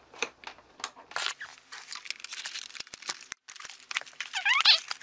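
Cardboard and plastic toy packaging crinkling, crackling and tearing in irregular snaps as a toy blaster is pulled free of its box, with a brief high squeak near the end.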